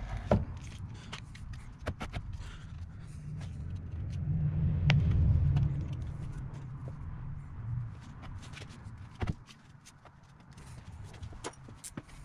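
A car battery being lowered into its plastic battery tray in the engine bay: scattered knocks and scrapes of hard plastic. It is loudest around the middle, as a low scraping rumble while the battery is shuffled and settled into place.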